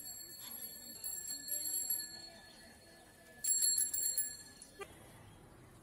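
A small metal bell rung in two rapid trills, the first right at the start for about two seconds and the second from about three and a half seconds in, stopping sharply near five seconds.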